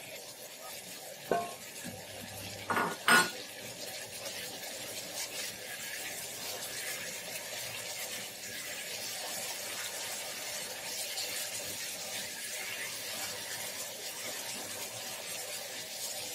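Shrimp and boiled taro corms sizzling steadily in hot oil in a non-stick wok as they are stir-fried with a spatula. A few short knocks of the spatula against the pan come in the first few seconds.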